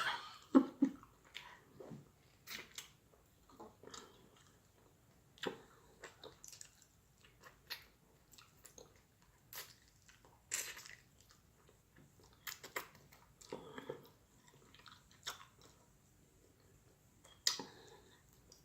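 A person chewing and biting food close to the microphone: scattered short, irregular mouth sounds with quiet gaps between them.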